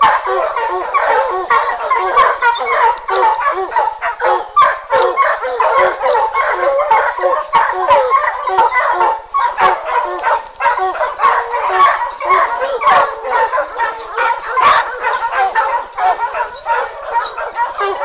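A pack of Plott hounds barking and baying without pause, many voices overlapping: the treeing bark of hounds that have a bear up a tree.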